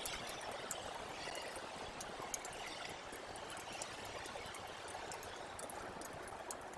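Snowmelt water trickling and running steadily, with faint scattered ticks like drips.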